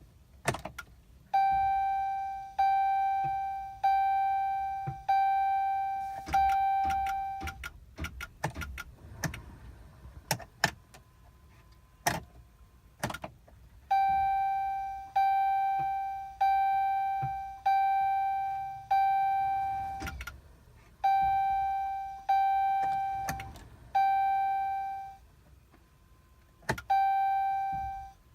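2012 Dodge truck's dashboard warning chime dinging over and over, one clear tone about every second and a quarter. It stops for several seconds about a third of the way in while a run of sharp clicks is heard, then resumes.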